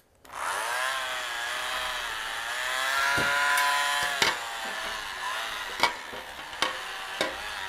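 Pampered Chef Multiflex Plus cordless hand tool's electric motor whining as it spins up, then running steadily while its beaters mash potatoes in a glass bowl. From about three seconds in come a few sharp clinks as the beaters knock against the glass bowl.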